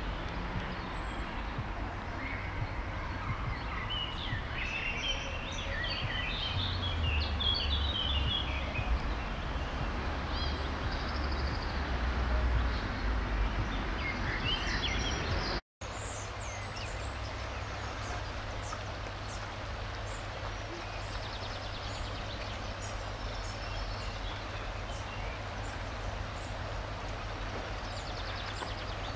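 Small birds chirping over a low rumble of road traffic that swells for several seconds. The sound drops out for a moment about halfway, then goes on as a steady outdoor hiss with a few faint bird calls.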